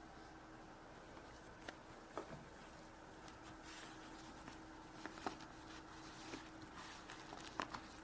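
Faint clicks and a brief rustle of small plastic and paper packaging handled by hands as a toy surprise is opened, with half a dozen sharp clicks spread out, the loudest near the end.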